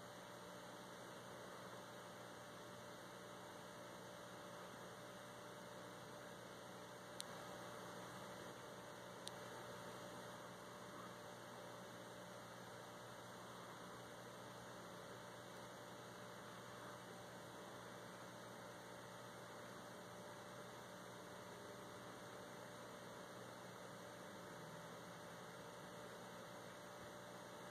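Near silence: a faint, steady electrical hum with low hiss, broken only by two tiny clicks about seven and nine seconds in.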